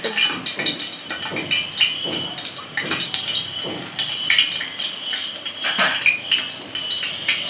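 Hot ghee sizzling and crackling in a steel pot as whole spices fry in it, with irregular pops throughout and a few clinks of a slotted steel spoon against the pot near the start.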